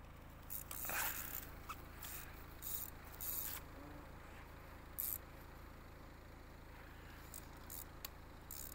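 Spinning fishing reel making several short, faint rasping bursts at irregular intervals while a hooked fish is being fought on the line.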